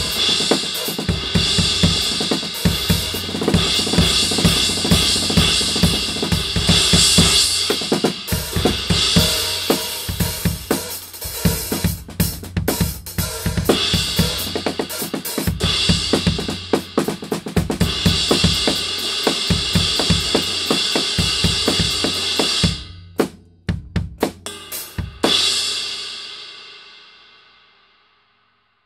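A drum kit groove with an Arborea Dragon 19-inch crash cymbal struck again and again over kick, snare and hi-hat; the cymbal is bright, with a long sustain. The groove stops about four-fifths of the way through, a few last hits follow, and a final crash rings out and fades away over about three seconds.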